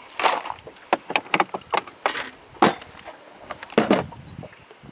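A series of sharp, irregular knocks and clicks, some with a metallic clink, from a landed giant snakehead and the lure hooked in its mouth being handled on a boat deck.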